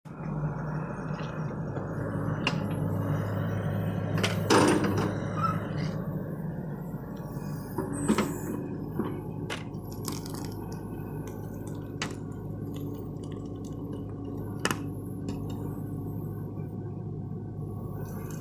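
Excavator's diesel engine running steadily with a low hum, with several sharp metallic knocks and clanks from the machine's work, the loudest about four and a half seconds in.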